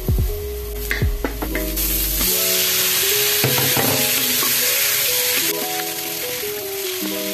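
Garlic, ginger and chicken frying in butter in a wok, sizzling steadily while stirred with a wooden spatula. A few spatula knocks sound in the first second and a half, and the sizzle grows louder about two seconds in as the chicken goes into the pan.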